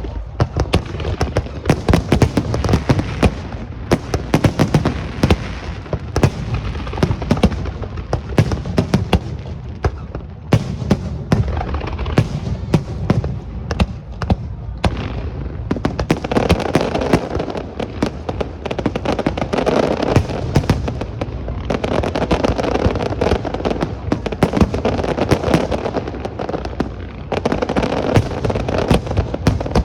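Aerial fireworks going off in rapid, near-continuous succession: deep booms of bursting shells over a dense crackle, with thicker volleys about midway and again later on.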